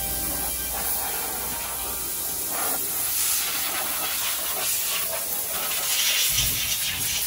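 High-pressure water spray hissing steadily from a self-service car wash wand, a little louder from about three seconds in.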